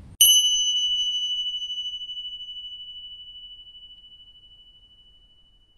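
A single high bell-like chime, struck once just after the start, ringing out and slowly fading away over about five seconds.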